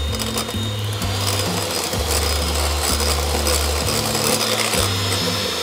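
Electric hand mixer running, its beaters whirring through egg yolks and sugar in a glass bowl; the motor's whine rises in pitch about a second in and then holds steady. Background music with a bass line plays underneath.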